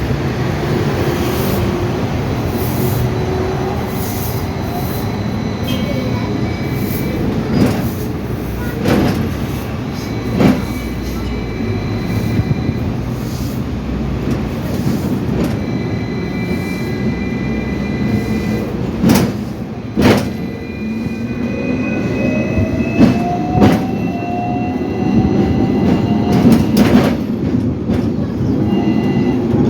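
Hong Kong double-deck electric tram running on its rails, a steady rumble with the traction motor's whine falling near the start and rising again in the second half as it picks up speed. Several sharp clanks are heard along the way.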